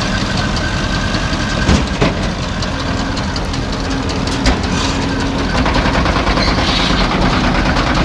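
Tractor engine running while a New Holland 658 round baler's tailgate lifts and drops a finished bale. There are sharp knocks about two seconds in, and a steady whine through the middle.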